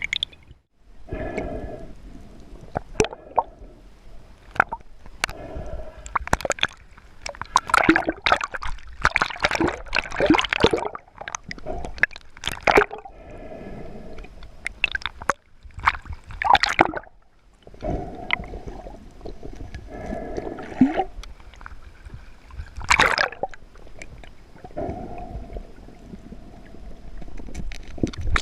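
Water gurgling and sloshing around a spearfisher, broken by splashy bursts and repeated breaths drawn and blown through a snorkel tube.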